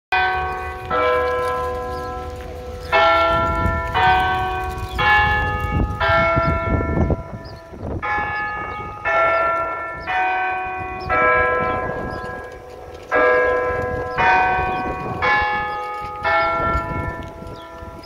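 Church bells sounding from horn loudspeakers on a rooftop bell cote: a repeating four-note pattern, about one stroke a second, with a short pause between each group of four. A low wind rumble on the microphone lies underneath.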